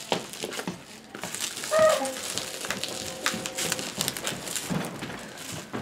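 Bubble wrap and plastic film crinkling and crackling as they are handled and cut on a box, with a brief pitched squeak about two seconds in.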